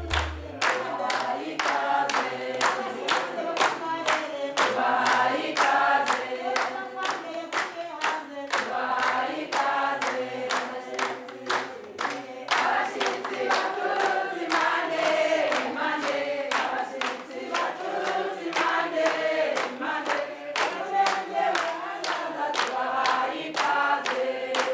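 A choir singing over a quick, steady percussive beat.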